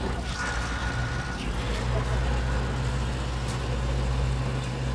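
A motor vehicle engine runs steadily with a low, even hum.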